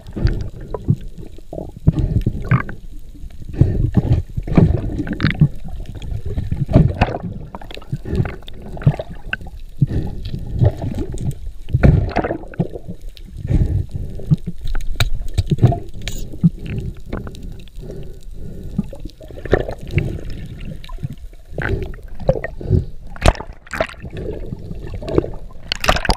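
Underwater sound heard through a GoPro dive housing: irregular muffled knocks and thumps with water sloshing, as a diver works steel spear shafts out of a speared yellowfin tuna.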